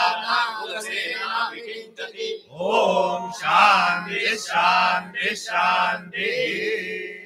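Group of men chanting Sanskrit mantras together through microphones over a steady low held note, the chant trailing off near the end.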